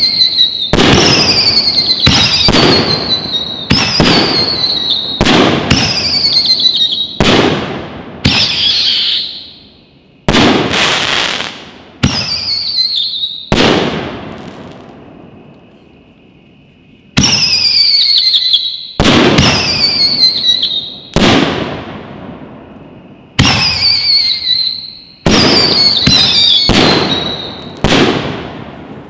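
Fox Fireworks Sonic 5-inch whistling canister shells firing in quick succession. Each gives a falling whistle that ends in a loud break, with a lull of a few seconds near the middle.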